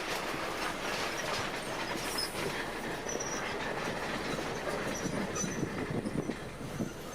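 Bulldozer at work: steel crawler tracks clanking and squealing over a steady diesel engine rumble, with short high squeaks from the track links.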